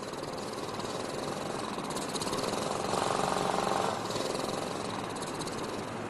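A portable generator's small engine running steadily with an even, rapid pulse, growing a little louder for about a second around three seconds in.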